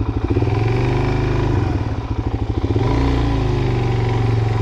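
Motorcycle engine running under way, its engine note rising and falling with the throttle a few times.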